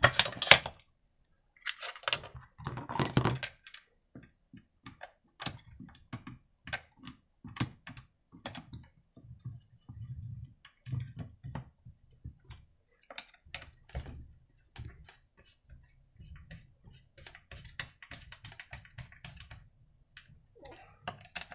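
A chainsaw's plastic starter cover being fitted back onto the saw and screwed down with a T-handle hex key: irregular clicks, taps and short rattles of plastic and metal, loudest in two clatters in the first few seconds as the cover goes on.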